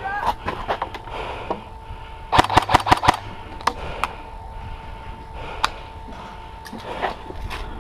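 Airsoft guns firing: scattered sharp snapping shots, with a quick string of about six shots about two and a half seconds in.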